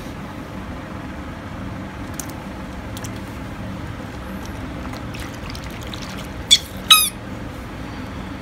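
Hands swishing and splashing small rubber toys in a plastic tub of soapy water, with faint small clicks. About two-thirds of the way through come two short, loud, high-pitched squeaks close together, each falling in pitch.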